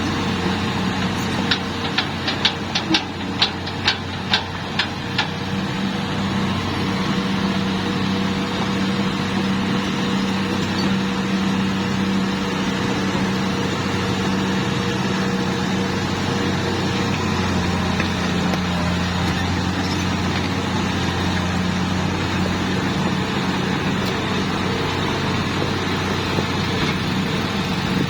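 Hitachi excavator's diesel engine running steadily under work, with a quick run of about ten sharp metallic clanks in the first few seconds and a slight drop in engine pitch about two-thirds of the way through.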